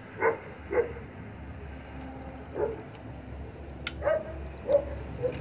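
A dog barking in short, separate yips, two loud ones close together and then several smaller ones. There are a couple of sharp clicks in the second half.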